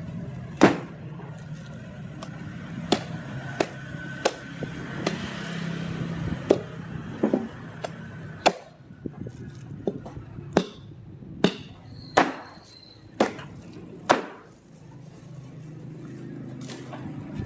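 Cleaver chopping roast pig on a chopping block: about fifteen sharp, irregular chops over a steady low hum.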